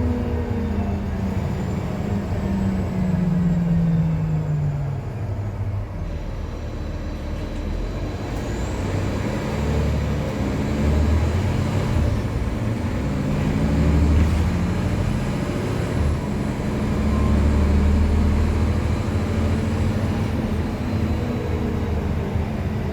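Novabus city bus with a ZF automatic transmission, its diesel engine note falling as it slows over the first few seconds, then pulling away: the pitch climbs and drops back several times as the transmission shifts up while the bus accelerates.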